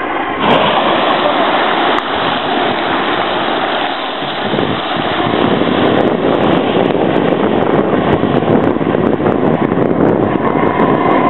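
Strokkur geyser erupting: a sudden loud rush of water and steam bursting up about half a second in, then a steady rush of spouting and falling water that grows fuller from about four seconds on.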